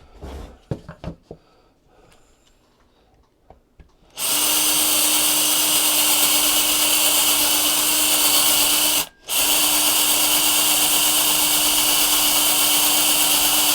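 Electric drill running steadily while boring a hole, with a constant hum. It stops for a moment about nine seconds in, then runs on. Its bit is going dull, by the user's account. Before the drill starts there are a few light knocks from handling.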